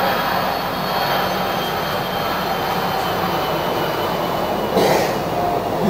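Steady hiss and low hum of an old, worn film soundtrack, with a brief thump just before the end.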